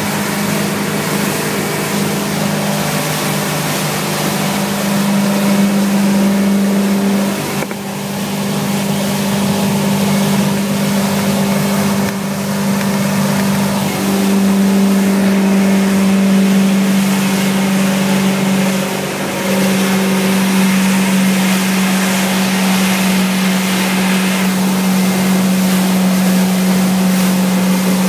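Boat's engine running steadily, heard from inside the cabin: a loud, even drone with a strong low hum. It dips briefly about seven and a half seconds in and again at about twenty seconds.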